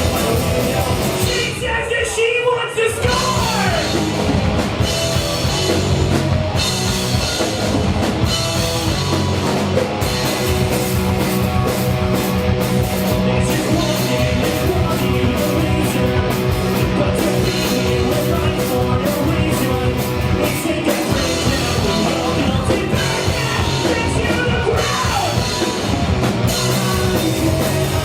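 Rock band playing live and loud, with a singer's voice over the band. The music dips briefly about two seconds in, then carries on without a break.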